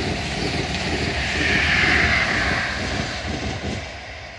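CrossCountry HST (diesel InterCity 125) passing at speed, a continuous rush of power-car engine and coaches running over the rails. The noise swells about two seconds in, then fades as the train draws away.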